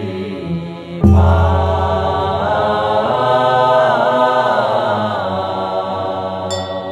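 Chinese Buddhist monastics chanting a zan hymn in slow, drawn-out melody. A loud strike with a deep ringing tail comes in about a second in, and a brief bright metallic ring comes near the end.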